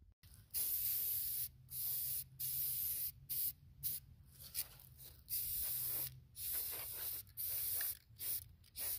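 Krylon Fusion All-in-One aerosol spray paint hissing from the can in about a dozen short bursts, each a second or less. This is a second coat being laid on in light passes.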